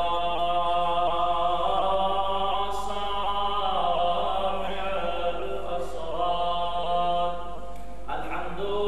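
A man's voice chanting a religious recitation in long, drawn-out melodic notes through a microphone and PA system, with a short break about seven seconds in before the next phrase begins.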